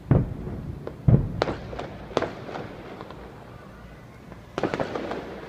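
Fireworks going off: two deep booms in the first second or so, then a string of sharp bangs, and a quick cluster of crackling reports near the end.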